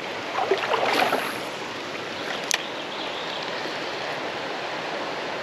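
Creek water running steadily, with a brief louder, uneven stretch in the first second and a single sharp click about two and a half seconds in.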